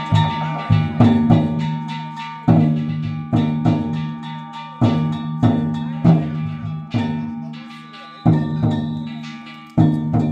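Danjiri festival music (narimono): drum and metal gong strikes in an uneven beat, a loud hit every second or two, each left ringing and fading before the next.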